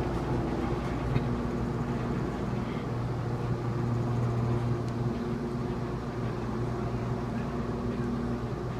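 Steady mechanical hum of a gondola lift's terminal machinery as the haul rope runs over the bullwheel and sheaves, with a low drone and a few held tones that fade in and out.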